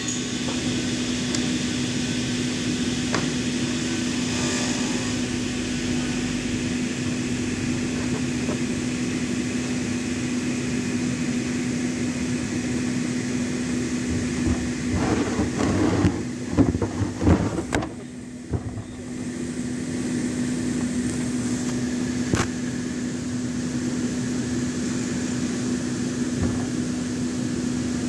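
Electric hand-held circular saw running steadily with a constant motor whine while cutting a wooden door jamb. Some irregular louder knocks come a little past halfway, the sound drops briefly, then the saw runs on steadily.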